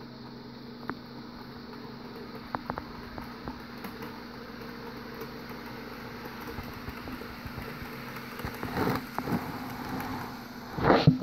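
Walthers HO-scale model subway train running on its track: a steady running hum with scattered sharp clicks from the wheels on the rails. It grows louder as the train comes close, with a few loud rattles near the end.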